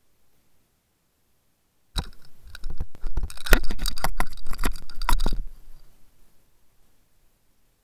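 A rapid, irregular run of knocks, clicks and scrapes with a low rumble, starting about two seconds in and dying away some three and a half seconds later: something jolting and scraping against the underwater camera housing.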